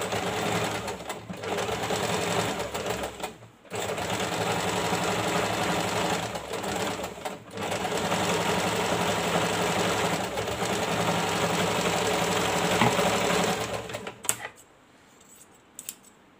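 Electric domestic sewing machine stitching, running a rough line of stitches around a strip-covered sleeve panel to tack it to its lining. It runs in steady stretches with a few brief pauses and stops about two seconds before the end, followed by a few small clicks.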